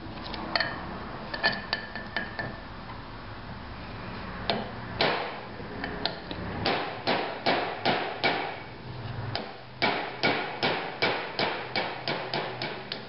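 Hammer tapping a steel pin punch to drive the headless rivets out of a Briggs & Stratton flywheel, freeing the old plastic starter ring gear. A few light taps come first, then two runs of quick metallic strikes, about two to three a second, with a short break between.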